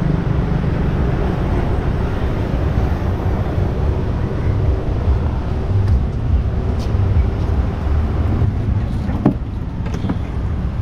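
Steady low rumble of road traffic passing, with two sharp knocks near the end.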